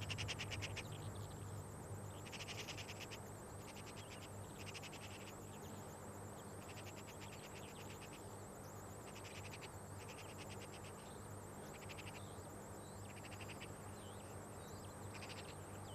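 Short bursts of rapid, high trilling animal calls, repeating about once a second, over a low steady hum.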